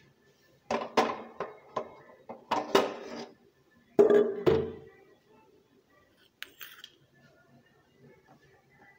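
Stainless steel kitchen vessels clanking and knocking against each other and the stove: a run of metallic clatters in the first five seconds, the loudest a heavy knock about four seconds in.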